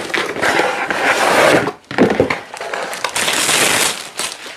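Cardboard box and packing wrap being handled: rustling, crinkling and scraping as the packing is opened and the wrap pulled off a small appliance, in two stretches with a brief pause a little under two seconds in.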